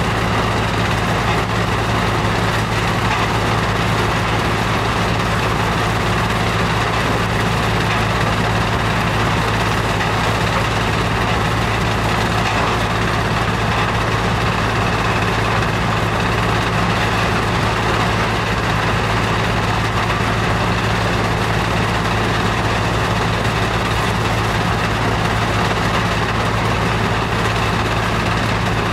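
Powerscreen Chieftain 1700 screening plant running, its engine, vibrating screen and conveyors making one steady, unbroken mechanical hum.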